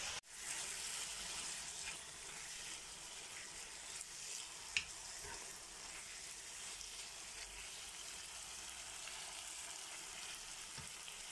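Diced chicken breast with onion and pepper sizzling steadily in a hot frying pan, stirred now and then with a spoon, cooking until the chicken is done. A single sharp tick comes a little before halfway.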